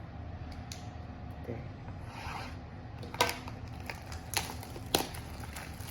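A sealed trading-card box being worked open by hand: rubbing and scraping of the packaging, with three sharp snaps about three, four and a half and five seconds in.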